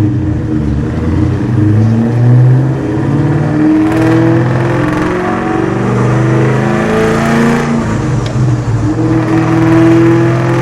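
Cammed, Whipple-supercharged Ford Mustang SVT Cobra 4.6-litre V8 with Kooks headers and a Borla ATAK exhaust, accelerating hard. The loud, lumpy exhaust note climbs and drops in pitch several times as the revs rise and fall.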